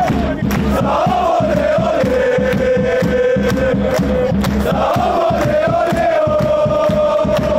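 A large crowd of football supporters singing a chant together in unison, in long held notes, while clapping along.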